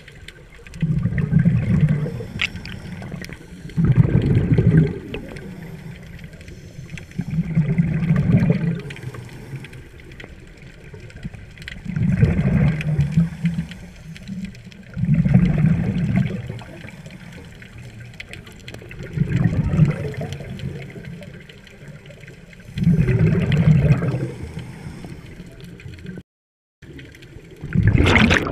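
Scuba divers' exhaled air bubbling out of the regulators underwater: a rush of bubbles about every three to four seconds in step with the breathing, over a steady low water hiss. The sound cuts out briefly near the end.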